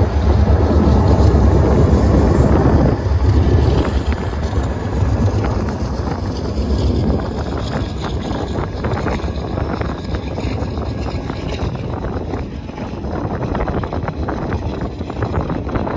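BNSF diesel locomotives rumbling past at close range for about the first three seconds, then the train's sound falls away, leaving wind buffeting the microphone.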